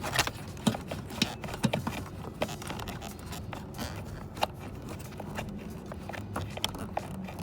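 LED headlight bulb being worked into a headlight housing by hand: scattered short plastic clicks, knocks and scraping.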